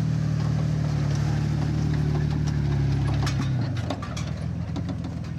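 Ford Bronco II engine running at a steady low speed as the truck drives past close by, its note dropping in level about three and a half seconds in as it pulls away. A few light clicks are heard along the way.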